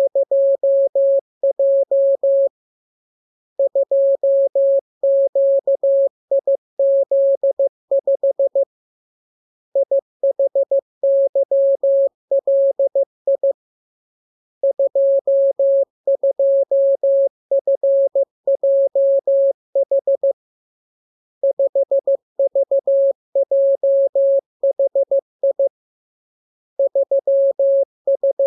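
Morse code practice: dots and dashes keyed on a single steady tone, sent in runs of several seconds separated by pauses of about a second.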